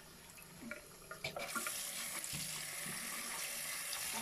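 Bathroom sink tap running into a ceramic basin: a faint trickle with a few small clicks at first, then the flow turns up about a second and a half in to a steady running stream.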